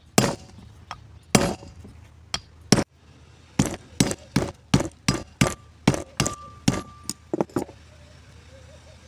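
Hammer blows on a wooden block, driving a ball bearing into its seat in a Bosch alternator's aluminium end housing. Three spaced knocks, then a quick run of about a dozen taps, about three a second, until the bearing is seated.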